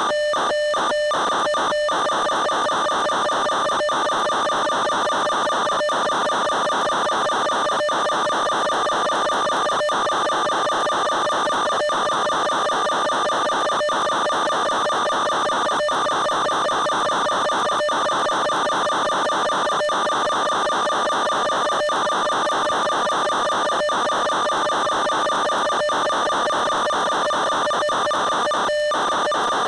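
Steady, unchanging whine of an FPV model aircraft's electric motor and propeller at a constant cruise throttle, over a hiss. Brief dropouts break the sound about every two seconds.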